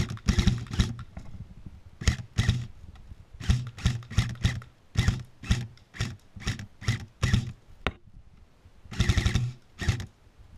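AK-pattern airsoft rifle firing on full auto in short, uneven bursts and single shots with pauses between them, ending in a longer burst near the end. The stop-start firing comes with malfunctions the shooter notices afterwards.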